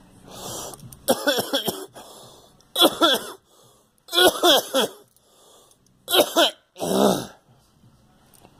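A person coughing hard in repeated fits: a softer cough at the start, then five loud hacking bouts spaced about a second apart. It is a lingering cough that the cougher says will never go away.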